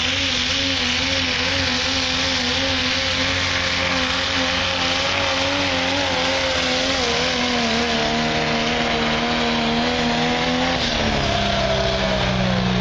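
Diesel pickup truck's engine running at high, nearly steady revs under full load as it drags a weight-transfer pulling sled. The pitch wavers slightly, then drops about eleven seconds in as the engine comes off the throttle at the end of the pull.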